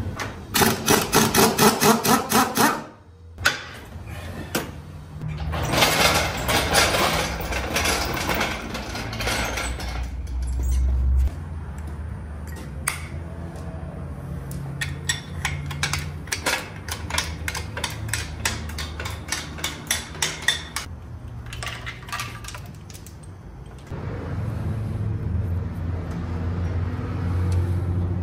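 Mechanical clatter: bouts of rapid clicking and rattling over a low steady hum.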